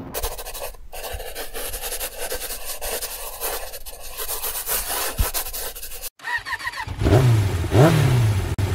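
A steady noisy rush, then after a brief break a motorcycle engine revved in about three quick blips, each rising and falling in pitch.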